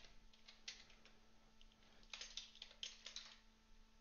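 Faint computer keyboard typing: a few scattered keystrokes, then quick runs of keys from about two seconds in.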